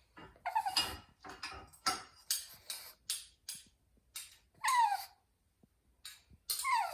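A bird singing: three downward-sliding whistled notes with overtones, near the start, in the middle and at the end, separated by rapid short clicks and chips.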